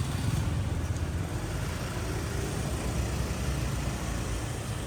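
Steady low rumble of street traffic, engines running without any single vehicle standing out.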